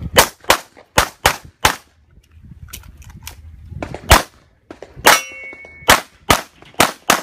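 Pistol shots fired in quick pairs and short strings, about a dozen in all, with a pause of about two seconds a second or so in. One shot about five seconds in is followed by a short metallic ring.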